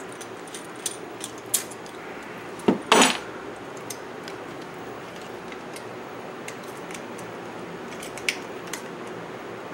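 Small metal C-clamps being unscrewed and taken off an epoxied knife handle: scattered light metallic clicks and clinks, with a louder clatter about three seconds in.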